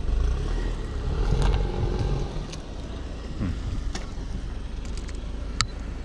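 A car driving off: a low engine and tyre rumble, loudest about a second in, with a dropping pitch a little past the middle, over wind buffeting the microphone. A few sharp clicks, the loudest near the end.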